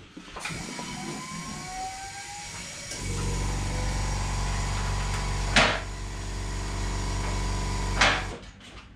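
Suzuki GSX-R1000 K6 inline-four with a Yoshimura exhaust starting about three seconds in and idling steadily. It is blipped sharply on the throttle twice, then cuts off suddenly near the end.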